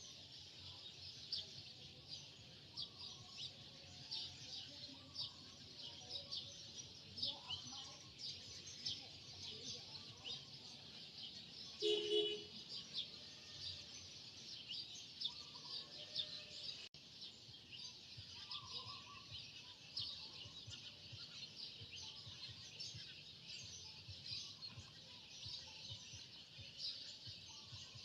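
Many small birds chirping continuously in a dense chorus of short, high chirps. About twelve seconds in, one brief louder sound stands out.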